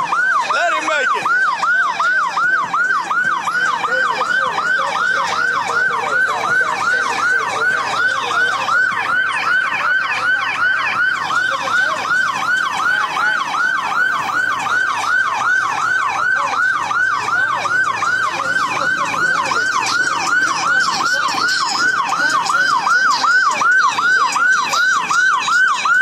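Police siren on its yelp setting: a fast rising-and-falling wail that repeats about three times a second.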